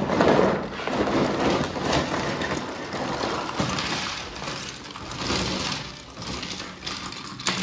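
A worn cardboard LEGO set box being pulled open and handled: crackling and scraping of the cardboard lid and flaps, loudest at the start, with rustling of the contents inside.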